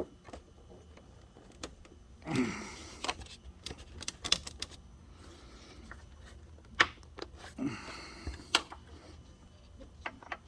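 Scattered plastic clicks and knocks, with a couple of longer scraping rubs, as the factory plastic air intake box is tugged and wiggled by hand to pull it free from the engine.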